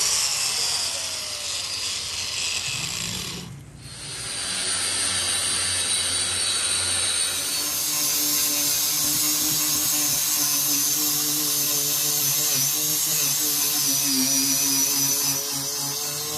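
A handheld power tool running steadily, easing off briefly about four seconds in, then running again with a steady high whine.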